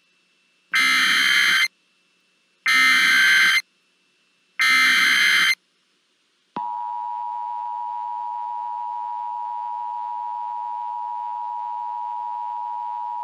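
Emergency Alert System broadcast signal: three bursts of SAME digital header data tones, each about a second long and about a second apart. After a short gap, the steady two-tone EAS attention signal starts and holds. Together they mark the start of an emergency alert, here a civil danger warning.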